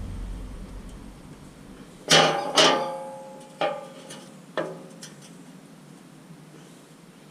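Hammer blows ringing on a thick steel engine skid plate as it is beaten to straighten a dent. Four strikes: two close together about two seconds in, then two more about a second apart, each leaving a metallic ring.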